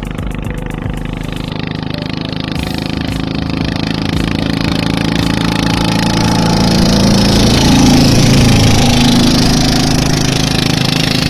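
Single-cylinder 'dompeng' diesel engine of a 24-horsepower klotok boat running flat out at speed, growing louder as the boat draws near and loudest about eight seconds in.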